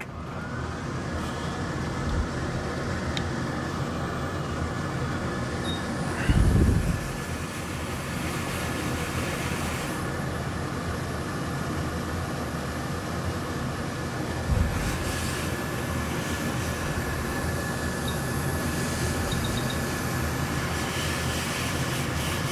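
Hot-air board preheater blowing steadily, its fan spinning up at the start and then holding a steady whine, as the logic board is heated before desoldering. Two dull knocks come about six and fourteen seconds in.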